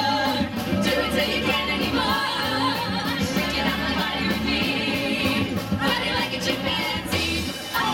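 Live theatrical rock band playing through a PA: several women singing together over electric guitar, a held bass line and drums.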